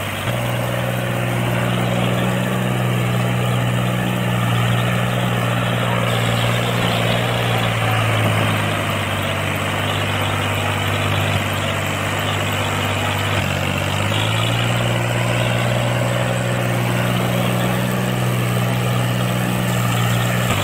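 Small electric motor of a miniature water pump running steadily with a hum, its tone shifting slightly a couple of times, over the splashing of water gushing from the outlet pipe.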